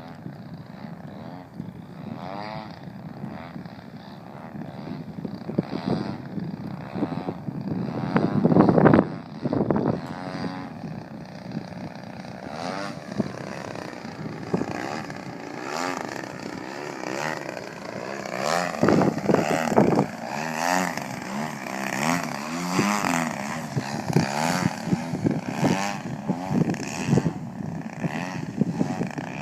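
Radio-controlled aerobatic plane's motor and propeller buzzing, the pitch repeatedly rising and falling as it swoops past and the throttle changes, loudest about nine seconds in.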